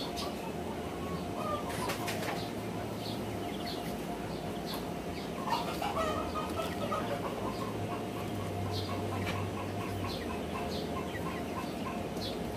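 Domestic ducklings peeping in short high chirps, about one a second, with lower clucking calls from the adult duck and hens. There is a quick run of those calls about eight seconds in, and a brief flutter of wings about two seconds in.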